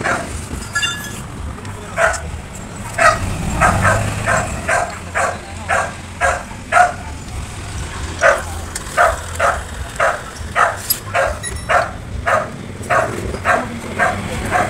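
A dog barking over and over, short barks at about two a second, over a low steady rumble.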